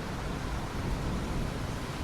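Steady rain, an even hiss, with a low rumble underneath.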